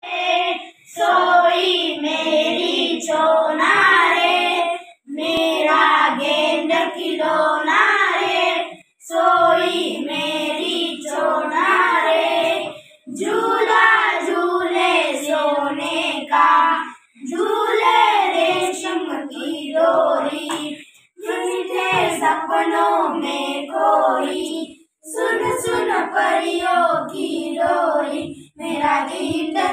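A small group of children singing a song together in unison, unaccompanied, in phrases of about four seconds with short breaks for breath between them.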